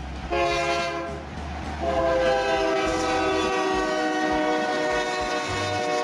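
Train horn blowing: a short blast, then a long steady blast held from about two seconds in, over the low rumble of the train.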